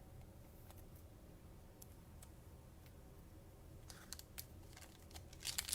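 Trading cards being handled, giving faint scattered clicks, then a cluster of sharper clicks and crinkling near the end as a cello pack's plastic wrapper is picked up.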